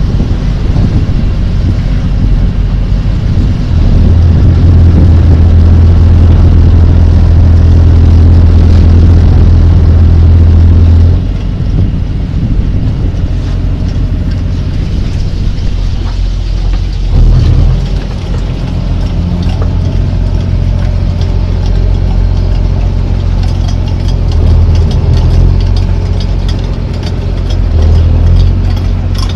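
Squid-fishing boat's diesel engine running steadily, a loud low hum heard on deck over wind and sea noise; it grows louder about four seconds in and eases back about eleven seconds in.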